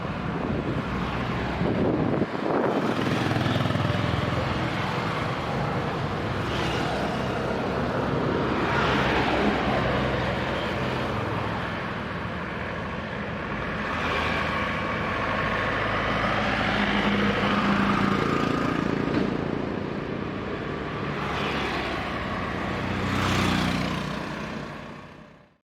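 Road traffic on a busy city road: a steady hum of engines and tyre noise, with one vehicle after another swelling and fading as it passes.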